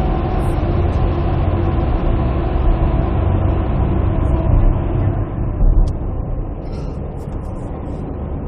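Road and engine noise of a moving car heard inside its cabin: a steady low rumble that eases a little about five and a half seconds in.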